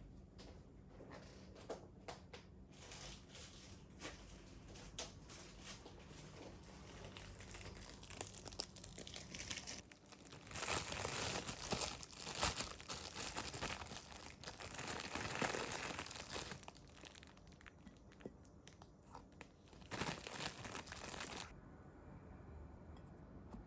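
Crinkling and rustling from something being handled at close range, in uneven bursts that are loudest about halfway through, again a few seconds later, and briefly near the end.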